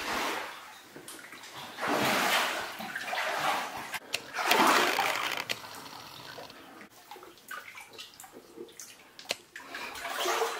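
Wading strides sloshing through shallow standing water in a flooded mine tunnel: a few slow swishes in the first half, then quieter small splashes.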